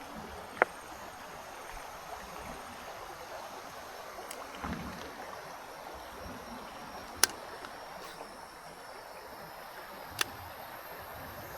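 Steady rush of river water, with three sharp, short clicks: about half a second in, about seven seconds in, and near the end.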